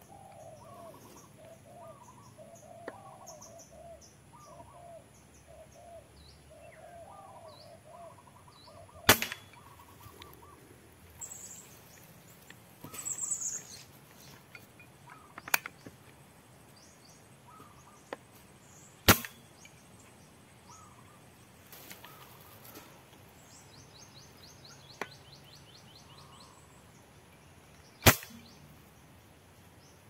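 Three air-rifle shots, each a single sharp crack, roughly ten seconds apart. Between them, birds call: a run of low repeated notes in the first several seconds, and faint high chirps.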